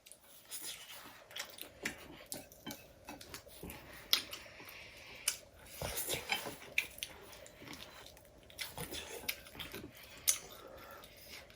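People eating chowmein noodles: chewing, with forks and spoons clicking and scraping on plates at irregular moments.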